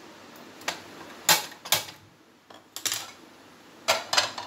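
About seven sharp metal clanks and knocks, some ringing briefly, as a black non-stick kadai is handled and set onto a gas stove's metal burner grate.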